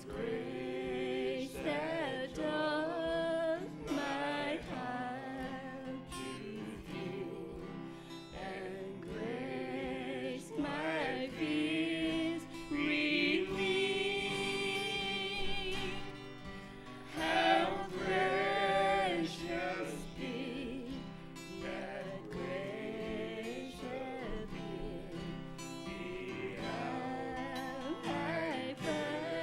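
A woman singing a slow song to acoustic guitar accompaniment, holding one long note with vibrato about halfway through.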